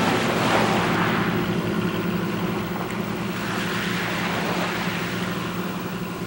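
Surf washing over rocks, swelling twice, over the steady low hum of a fishing boat's engine.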